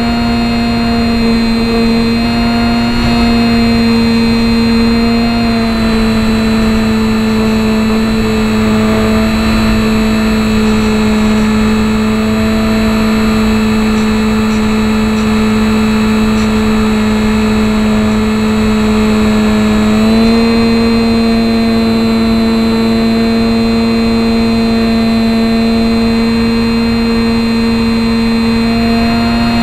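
HobbyZone Champ RC plane's electric motor and propeller, heard from a camera riding on the plane: a loud, steady whine over a rush of air. The pitch dips slightly about five seconds in and steps back up about twenty seconds in.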